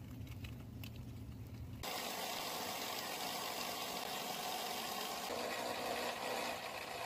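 Faint room tone with a low hum and a few light clicks, then about two seconds in an abrupt switch to a steady, even mechanical hiss that runs on unchanged.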